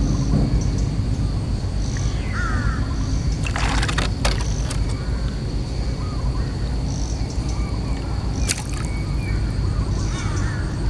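Outdoor ambience: a steady high insect drone with short repeated chirps, a few bird calls and some water sloshing, over a steady low rumble, with a couple of sharp clicks.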